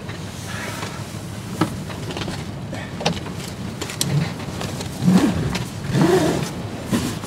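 Steady rush of wind over the microphone and water along a sailing yacht's hull under sail, with a couple of sharp knocks from the deck gear and muffled voices near the end.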